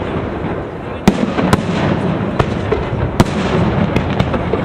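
Fireworks display: aerial shells bursting in sharp bangs, about six of them, the loudest about a second in, over a continuous dense din of further explosions.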